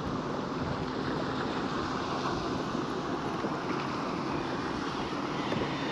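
Steady wind buffeting the microphone and water lapping against a boat hull, with a low steady hum underneath.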